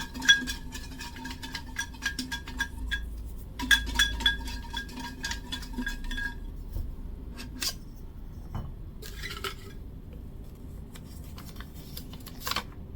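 Metal cocktail shaker shaken with small pieces rattling inside: two bouts of rapid clinking with a ringing metallic tone, then a few scattered knocks as it is handled.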